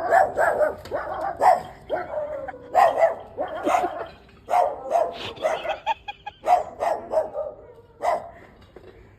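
A dog barking in quick runs of two or three barks, over and over, easing off near the end.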